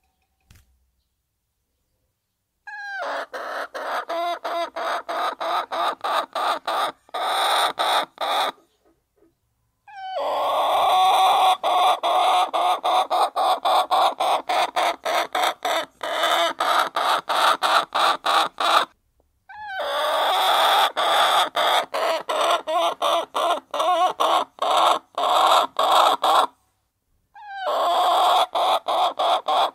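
A flock of hens clucking and pecking at their feed, a fast, even patter of about four pulses a second. It comes in stretches that start and stop abruptly, with short dead-silent gaps between them.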